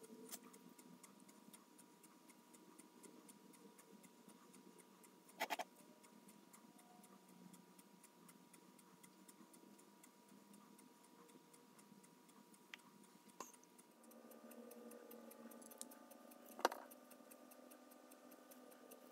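Near silence: faint room tone with a faint steady tone, fine ticking and a few soft clicks, the clearest about five seconds in and near the end.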